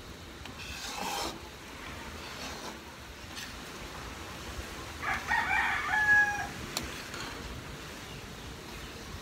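A rooster crows once about five seconds in, the call ending on a long held note. Under it runs the steady low bubbling of the thick rice mixture being stirred in the pan.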